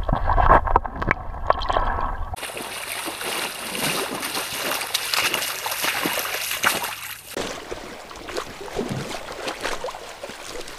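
Water sloshing and splashing around a camera dipped in a brook while a brook trout is released by hand. About two seconds in, this switches abruptly to the steady rush of the shallow brook running over stones.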